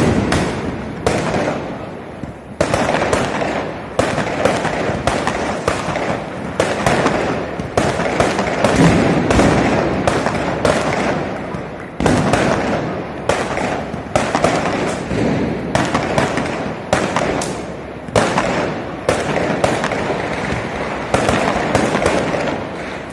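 Diwali fireworks going off all round: aerial shells bursting overhead and firecrackers cracking. A dense run of sharp bangs and crackle, with a louder bang every few seconds.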